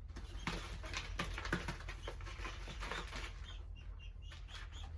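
Pigeons being handled and moving about in a shipping box: wing flaps and scratchy rustling. Near the end come faint, high, short squeaks from the young pigeons.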